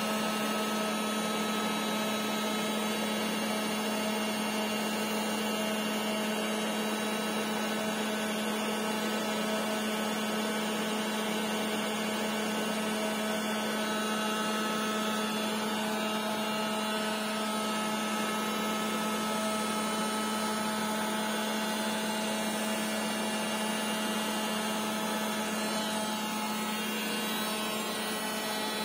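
All-in-one lithium iron phosphate power bank with its inverter delivering about 1200 W (around 100 A from the battery), its cooling fan running: a steady whir with an electrical hum. One of the higher tones drops out about three seconds before the end.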